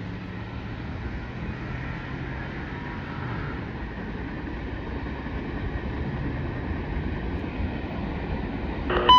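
Freight train rolling past: a steady rumble of cars on the rails, with a diesel locomotive's low drone fading out in the first few seconds. Near the end, a brief radio tone comes over a scanner as a trackside defect detector begins its transmission.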